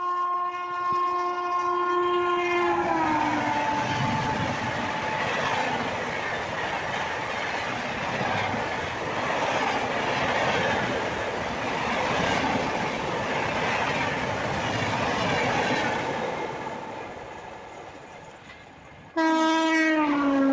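An Indian Railways express train's electric locomotive sounds its horn as it runs through at speed, the horn dropping in pitch as it passes. The coaches then rush past in a steady loud rumble that fades away. Near the end another electric locomotive's horn starts abruptly and also drops in pitch as it goes by.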